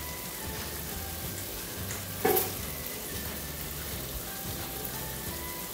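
Simmered beef entrecôte sizzling gently in a nonstick frying pan, the water cooked off so the meat now fries in its own fat: a steady soft hiss with one short louder crack about two seconds in.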